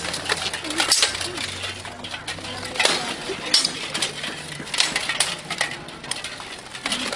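Steel longswords clashing against each other and against full plate armour in a bout between two armoured fighters: a string of sharp, irregular metallic clangs and clinks, each with a short ring.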